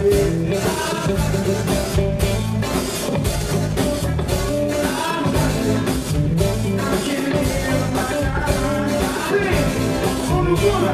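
Live band playing a song with lead singing over drum kit, electric guitar and keyboards.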